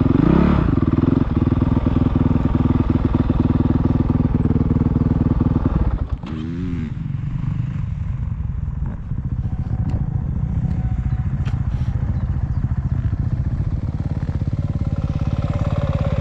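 Dirt bike engine running under load, with a brief rev near the start and another about six seconds in, after which it runs quieter at lower revs until it picks up again near the end.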